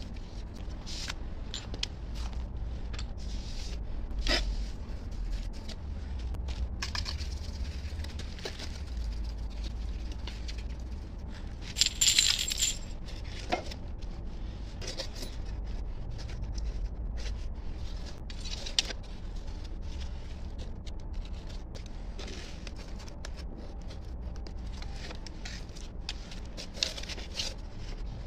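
A trowel scraping and tapping as wet cement mortar is packed into a mould against a thin metal cylinder, with scattered metallic clicks and one louder scrape about twelve seconds in, over a steady low hum.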